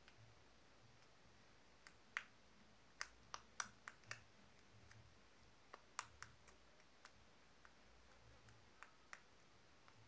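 Homemade slime being squeezed and stretched in the hands, giving faint, irregular little clicks and pops.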